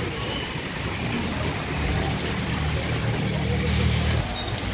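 Rain falling on a waterlogged street, with a motorcycle engine passing close by: its low engine note swells from about two seconds in and drops away about four seconds in.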